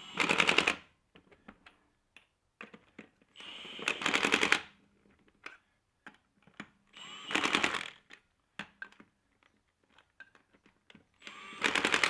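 Milwaukee cordless impact wrench hammering, in four short bursts a few seconds apart, running the wheel's lug nuts on snug but loose. Light clicks and taps of the socket being moved from nut to nut come between the bursts.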